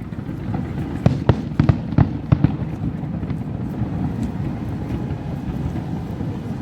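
Fireworks display: a rapid run of sharp bangs from about one to two and a half seconds in, over a continuous low rumble.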